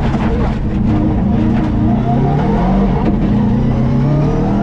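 Subaru Impreza WRX STI rally car's turbocharged flat-four engine at full throttle, its pitch climbing, dropping back and climbing again as it shifts up through the gears.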